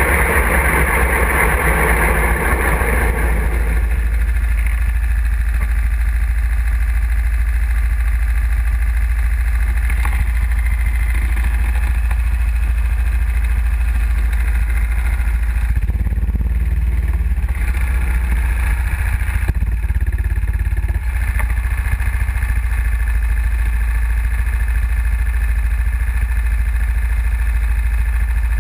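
Go-kart engine heard from the kart's onboard camera, running at speed for the first few seconds and then dropping to a lower, steadier note as the kart slows and sits stopped, likely idling. A heavy low rumble from the engine and vibration on the mounted camera runs throughout.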